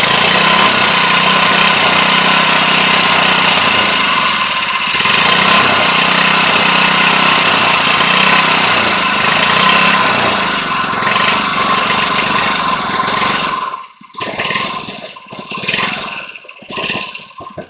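Small single-cylinder petrol engine running on wood gas with the choke on, at a steady pace for about fourteen seconds, then dying as its small store of wood gas runs out. A few short, uneven noises follow near the end.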